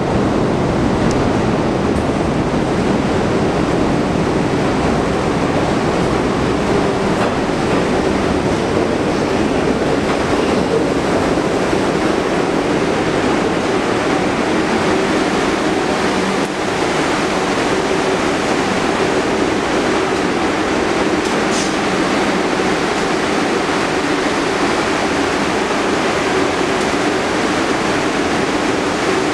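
A New York City Subway R62A shuttle train arriving along the curved track into the station, its wheels and motors rumbling on the rails. The noise is loud and steady throughout, with a low hum.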